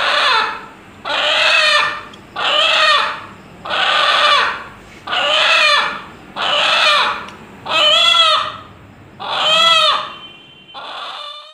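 Rooster calling over and over, about ten short calls a little over a second apart, each rising then falling in pitch in a way that resembles the word 'Allah'; the last call is fainter.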